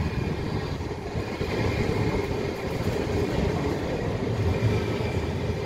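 Electric tram passing at close range: a steady low rumble of wheels on rails with a faint, even whine from its motors above it.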